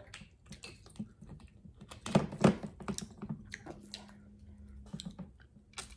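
Scattered small clicks and taps from objects being handled at a table, with two louder knocks a little after two seconds in.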